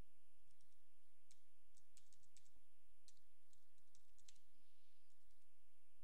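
Computer keyboard keys clicking in irregular runs of typing, over a faint steady high whine.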